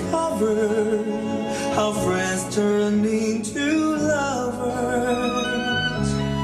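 A song with a sung vocal over instrumental accompaniment, played back through Focal Electra 1028 Be floorstanding loudspeakers.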